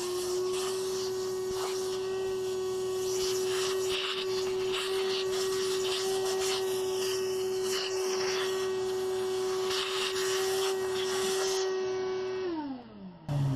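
Shop vac running steadily as it sucks dirt out of a sliding door's bottom track, with scraping and rattling from the nozzle and debris at times. It is switched off near the end and its motor winds down.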